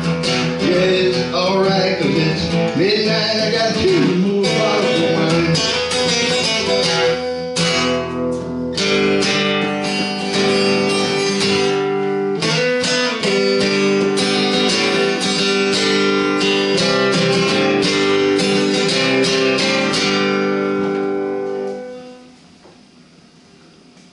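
Acoustic guitar played as the song's instrumental ending. The strummed chords turn into long ringing chords from about nine seconds in, and the final chord fades away near the end.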